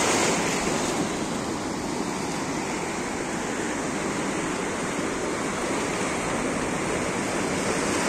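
Small waves washing in over rocks and a sandy beach: a steady rush of shallow surf.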